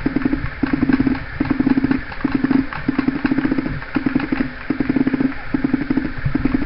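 Paintball markers firing in rapid full-auto bursts: a buzzing rattle of quick shots, repeated in half-second bursts with short pauses.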